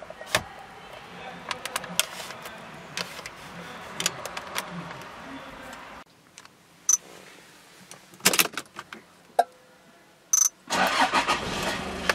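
Clicks and rattles of an aftermarket car stereo's detachable plastic faceplate being handled and snapped into place, then a few knocks and two short high beeps.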